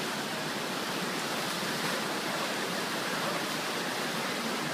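River water rushing past in a steady hiss, with no splashes or other separate sounds standing out.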